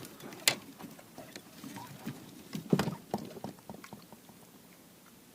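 A freshly landed common carp thrashing in the boat or landing net: a few sharp knocks and slaps of the fish's body, with softer rustling between them.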